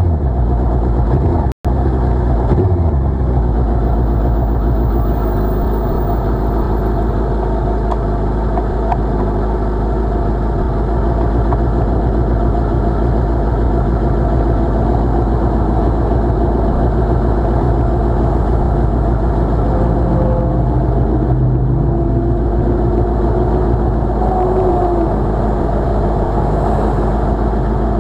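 Suzuki Hayabusa's inline-four engine winding down as the bike rolls to a stop, then idling steadily in neutral. The audio drops out for an instant about a second and a half in.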